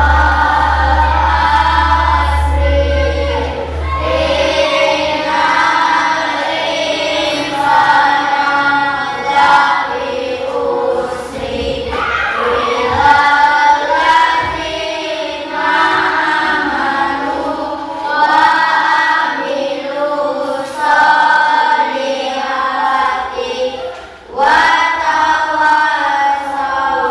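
A group of children singing a song together in unison, phrase after phrase.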